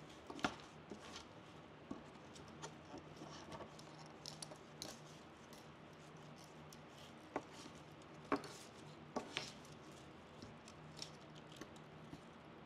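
Close handling sounds of fresh evergreen sprigs being pressed and wired onto a wreath: soft rustling of needles and stems with scattered sharp clicks and snaps, the loudest about half a second in and a cluster around eight to nine seconds in.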